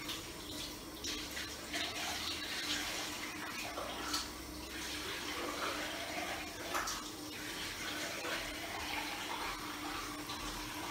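Water running from a tap into a ceramic washbasin, splashing irregularly as hands rub and rinse the basin.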